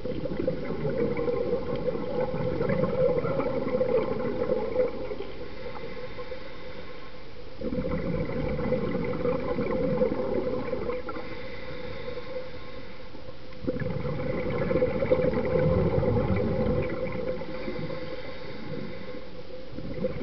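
Scuba diver breathing through a regulator underwater: three long stretches of exhaled bubbles, each about four seconds, with quieter inhalations between.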